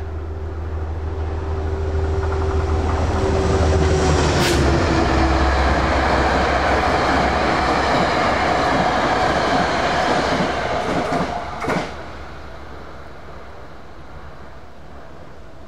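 A train passing at speed: a steady tone that drops slightly in pitch as the front goes by over a low rumble, then the loud rush of wheels on rails with a couple of sharp cracks. It falls away suddenly about twelve seconds in as the end of the train passes.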